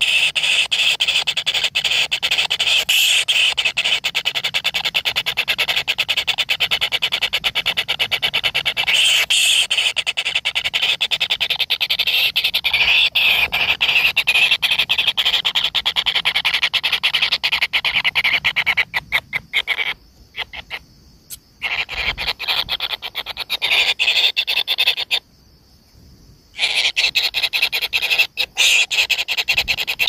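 Kingfisher nestlings begging in the nest burrow: a continuous, loud, high, rapid churring stream of calls. The calling breaks off twice, briefly, in the last third.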